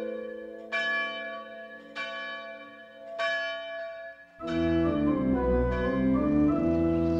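Church bells striking about every second and a quarter, each stroke ringing out and fading. About four and a half seconds in, a low, sustained organ chord takes over.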